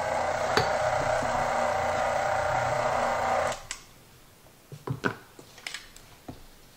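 Electric stand mixer motor running under heavy load, churning a stiff, overfull bowl of cookie dough at its limit. It cuts off about three and a half seconds in, followed by a few light knocks.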